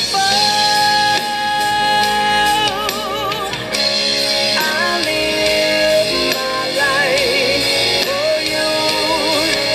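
Background music: a song with a singing voice holding long, wavering notes over instrumental backing.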